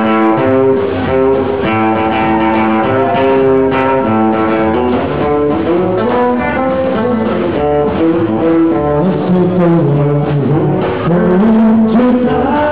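Rock 'n' roll band music with a guitar playing a run of melodic notes.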